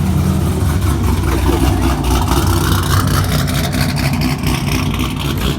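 Cammed V8 engine running close by, a loud, steady, pulsing exhaust note with its aftermarket camshaft.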